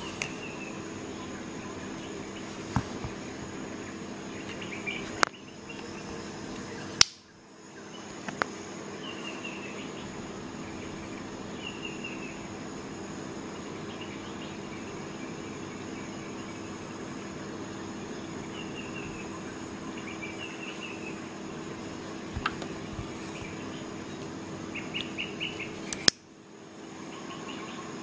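A folding knife handled close to the microphone gives a few sharp clicks; the loudest come about seven seconds in and again near the end. Under them runs a steady hum, with faint high chirps in short groups.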